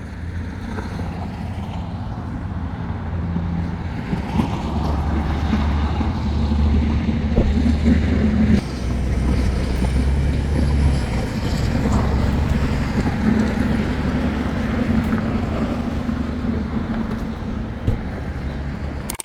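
Vehicle engine running with road noise: a steady low hum whose pitch rises and falls a little. It cuts off abruptly at the end.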